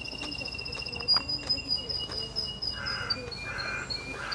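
Outdoor bird and insect ambience: a steady, finely pulsing high trill, joined in the second half by a run of short harsh calls about half a second apart. A sharp click sounds about a second in.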